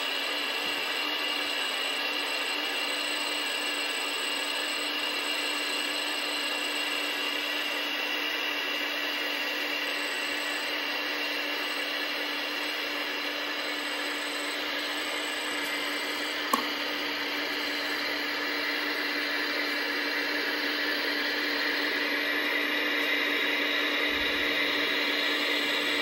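Hydraulic pump of an RC Liebherr 926 model excavator running with a steady whine while the boom lifts a model roller on chains. There is a single sharp click about sixteen seconds in, and the whine grows a little louder near the end.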